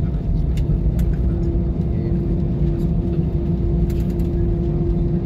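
Cabin noise inside an Airbus A320 rolling on the ground: a steady engine hum over a low rumble from the wheels, with a few faint clicks.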